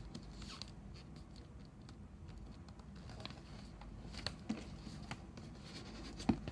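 A paper sheet being folded and creased by hand: faint rustling with a few soft crinkles and taps, the sharpest a little after four seconds in and near the end.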